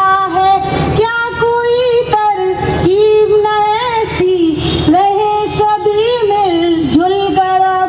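A girl singing a Hindi children's song into a microphone, solo, with long held notes that glide from one pitch to the next.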